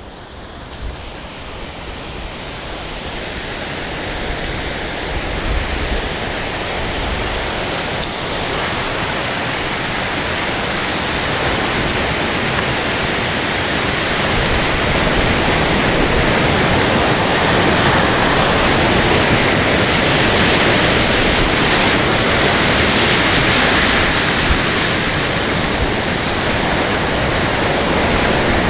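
Steady wash of ocean surf breaking on a beach, an even roar that swells up and grows louder through the first half, then holds.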